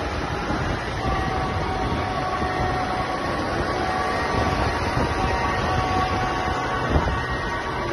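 A procession of tractors running past, with a steady horn tone sounding over the engines from about a second in and holding for several seconds.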